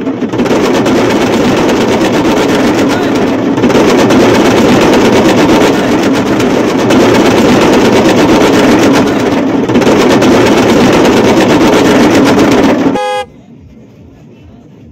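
A group of barrel drums (dhol) beaten hard and fast, so loud and close that the sound is distorted, in a dense continuous din. It cuts off abruptly about 13 seconds in, with a brief pitched tone just before.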